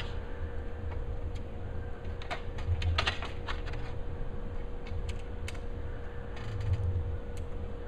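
Light clicks and taps of a metal frame rail being handled and pressed into place along the edge of an acrylic LED panel, with a quick run of clicks about three seconds in.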